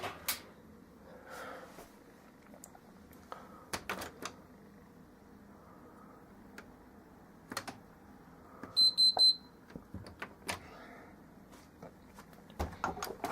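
Three short, high electronic beeps in quick succession about nine seconds in, over a quiet room with a few scattered clicks and knocks.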